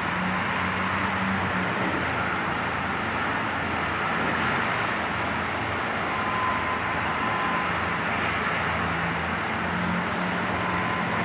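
Steady noise of slow road traffic on a bridge roadway, with a low engine hum that comes and goes.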